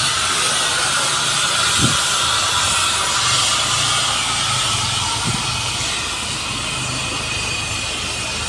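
Steam traction engines driving past at close range: a steady hiss of steam over a low engine rumble, with a brief knock about two seconds in and another about five seconds in.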